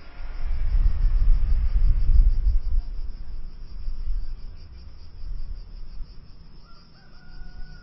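Insects chirping steadily in a fast, even, high-pitched pulse, over a low rumble that is loudest in the first three seconds. A faint steady tone comes in near the end.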